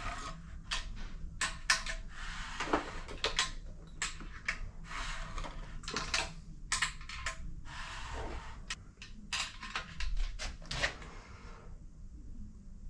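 Irregular clicks and short metallic rattles from a bare Triumph 1.5 engine being turned over by hand to recheck the cam timing. They thin out and go quieter near the end.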